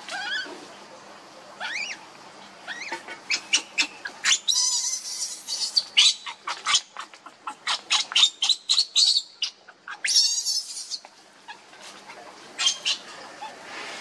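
Baby macaque squealing and crying in a quick run of short, high calls, with two longer, harsher screams about four and ten seconds in. These are the distress cries of a hungry infant whose mother is refusing it milk.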